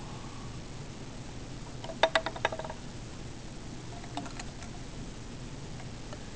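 A quick run of four or five hard clinks with a short ring, as lab containers are knocked or set down, about two seconds in. A fainter few follow about four seconds in, over a steady low hum.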